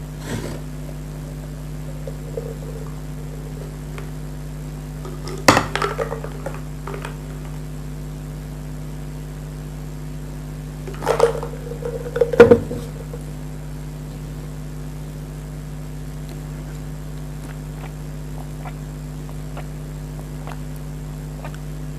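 Tableware being handled on a table: a single knock about five seconds in and a few knocks and clinks around eleven to thirteen seconds, over a steady low hum.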